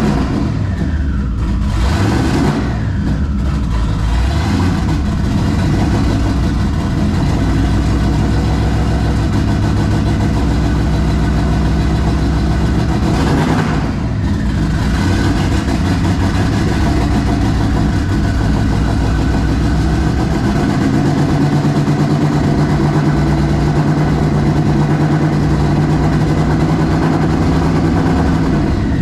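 Twin-turbocharged Ford 4.6 L two-valve V8 running just after its first start, blipped up a few times with the revs falling back each time, then settling to a steady idle in the last third. Still untuned on big 60 lb injectors, it is running very rich.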